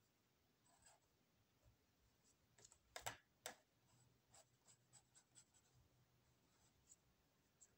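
Faint scratching and tapping of a pen on paper during drawing, with two sharper clicks about three seconds in, followed by a run of small irregular ticks as the tip works on the page.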